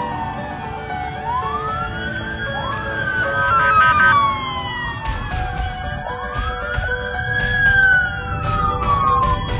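Several emergency-vehicle sirens wailing at once, their pitch rising and falling in slow overlapping sweeps, over a steady low rumble.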